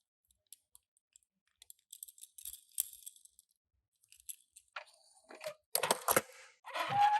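Toy packaging being handled and opened: scattered small clicks, then loud crinkling and crunching in the last two seconds, with a brief squeak near the end.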